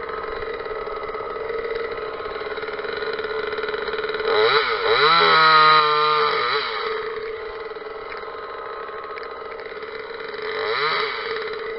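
Parker top-handle two-stroke chainsaw idling, then revved up about four seconds in and held at high revs for a couple of seconds before dropping back to idle. A second short blip of the throttle comes near the end.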